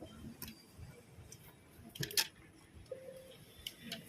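Scattered small clicks and scraping from hand tools working on a fiber-optic cable, with one sharper click about two seconds in.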